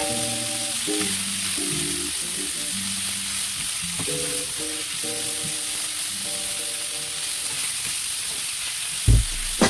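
Pork and vegetables sizzling in a hot frying pan as a spatula stirs them, with background music playing. Near the end, several sharp knocks of the spatula against the pan.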